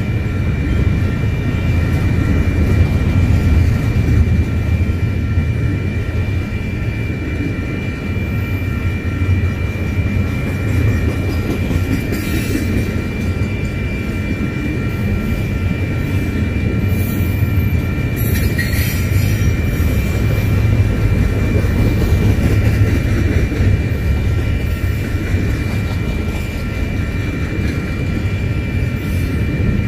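Double-stack intermodal freight cars rolling past on the rail, a steady loud noise of wheels on track with a constant high-pitched wheel squeal running over it.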